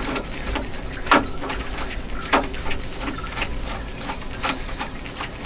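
Screwdriver turning the screw of a hose clamp on a truck's upper radiator hose to loosen it: a string of irregular metal clicks and scrapes, the sharpest about a second in and again about two and a half seconds in.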